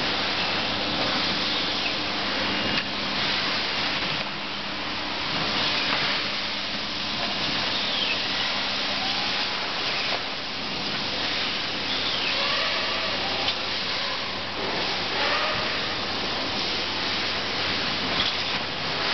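Vaculex vacuum tube lifter running: a steady rush of air drawn in through the suction foot and lift tube by its 3 kW vacuum pump, with a low steady hum underneath.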